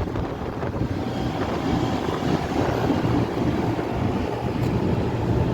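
Rooftop air-conditioning unit running steadily with its stage 1 compressor back in service after repair of a broken discharge pipe, while it is charged with refrigerant: a steady machine hum with a rush of air.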